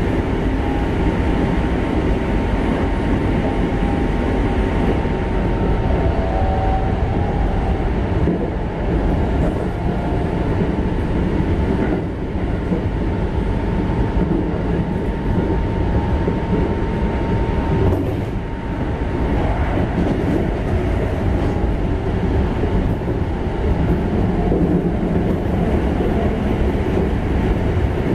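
Mitsubishi GTO-VVVF Keikyu 1500-series electric train running between stations, heard from inside the passenger car: a steady rumble of wheels on rail. A thin steady whine sits above the rumble and fades out about two-thirds of the way through.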